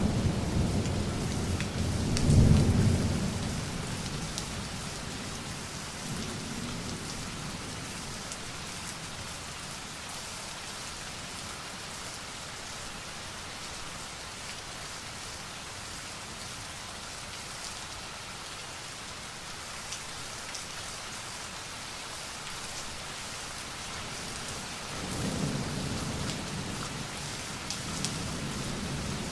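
Steady rain falling, with rolling thunder rumbling loudly at the start and again near the end.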